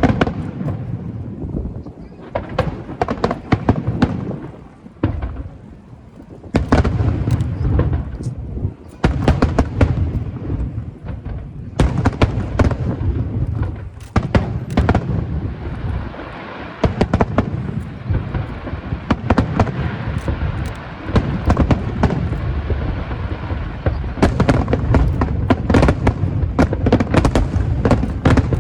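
Aerial fireworks going off: many sharp bangs in quick succession over low booms, with a denser stretch of continuous crackling around the middle.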